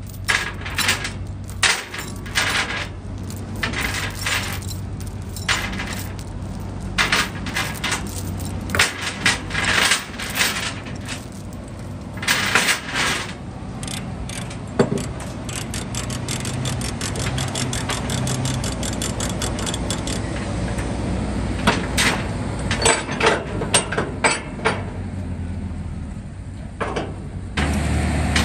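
Steel transport chains clinking and clanking against the reels and trailer deck as a ratchet load binder is worked and released to unchain the load, many sharp metallic clanks throughout. An engine runs steadily underneath.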